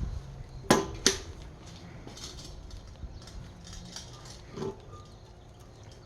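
Two sharp metal knocks about a second in, a fraction of a second apart, then a softer knock later, with light clatter between: hand work on a diesel cylinder head while its valves and keepers are being taken out.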